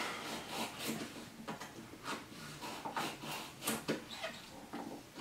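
Two chef's knives chopping carrot and zucchini on wooden cutting boards: irregular short knocks of the blades striking the boards.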